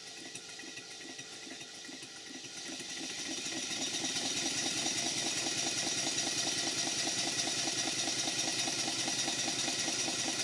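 Large old twin-cylinder model steam engine running on compressed air, with a fast, even exhaust beat over a steady hiss. It picks up and grows louder over the first few seconds, then runs steadily. Its main bearings and big ends are freshly tightened.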